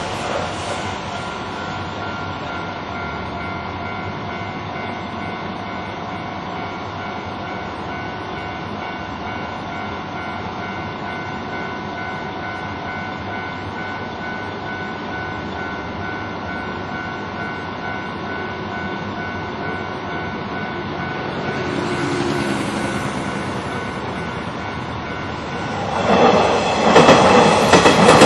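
A Japanese level crossing's electronic warning bell rings steadily and without let-up while the barriers are down. About 26 seconds in, an electric train runs through the crossing loudly, its wheels clattering over the rails.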